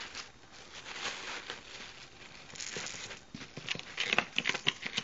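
Plastic wrapping crinkling and rustling as a boxed loudspeaker is handled and unwrapped, with a run of sharper crackles and taps near the end.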